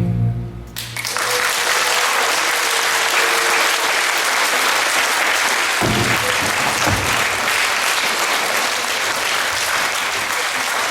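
The last notes of a band's song die away, and about a second in the audience breaks into steady applause that carries on.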